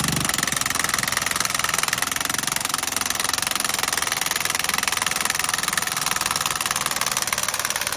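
Milwaukee 1-inch cordless impact wrench hammering without a break at its top speed setting, driving a steel helical pile into the ground. The pile is still turning in easily through soft, disturbed soil.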